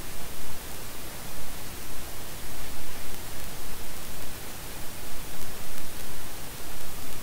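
Steady hiss of static across the whole range, with no tones or distinct events: recording noise.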